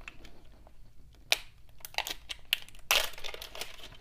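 Foil wrapping on a small toy being picked at and peeled off by hand, giving irregular sharp crinkles and crackles that grow denser about three seconds in.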